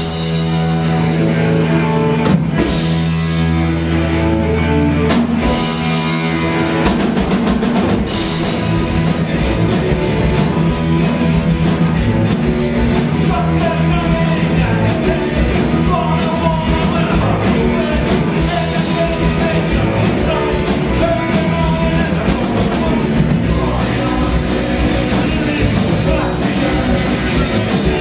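Live rock band playing loudly: held guitar chords with a few drum hits, then the full band with steady drumming kicks in about seven seconds in.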